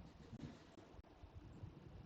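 Near silence: faint room tone with low hum.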